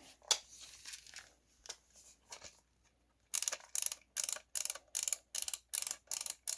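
An airsoft rifle's high-capacity magazine being wound by its thumb wheel. A few faint clicks come first, then from about halfway in a steady run of short ratcheting bursts, about two and a half a second.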